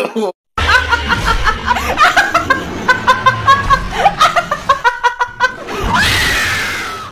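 A woman's voice in quick bursts of snickering laughter, then a long scream about six seconds in.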